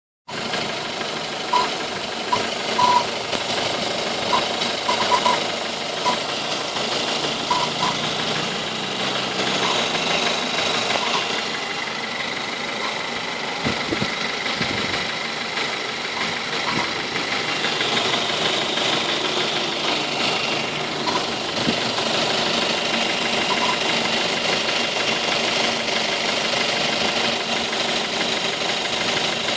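Ford Focus 2.0 engine running steadily, with a noise from the air-conditioning compressor belt; brief chirps come and go over the engine sound, mostly in the first ten seconds.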